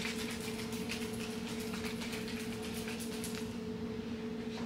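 A steady low hum, with faint light clicks and taps over it.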